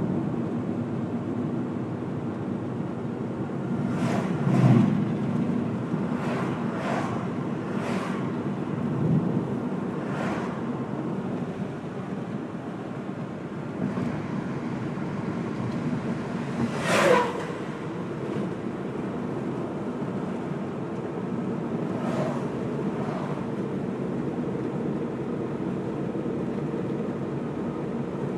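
Steady road noise of a car driving along a highway, a constant low drone, with several short whooshes, the loudest one about seventeen seconds in, falling in pitch.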